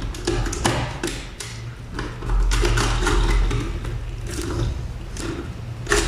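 Irregular clicks and taps of a wire being fastened into the coil terminal of a contactor timer on a wiring board, with a low handling rumble about two seconds in and a sharper click near the end.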